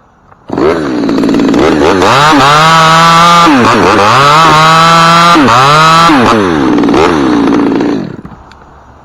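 Chainsaw running at full throttle and cutting through an ash limb, its pitch dipping several times as it cuts, then let off about eight seconds in.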